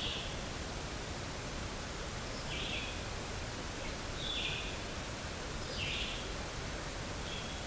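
A short, high, slightly falling call, repeated about every one and a half seconds over steady outdoor hiss, typical of a small bird or animal calling in woodland.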